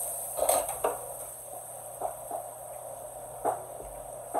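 Steady kitchen hum with a few light, scattered knocks and clinks of kitchenware.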